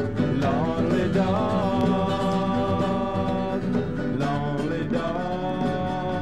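Early-1970s demo recording of acoustic music with plucked strings, a lead line held in long notes that bend in pitch at the end of each phrase.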